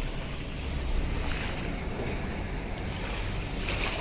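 Wind buffeting the microphone over water lapping at a river shore, with two brief splashing hisses, about a second in and near the end.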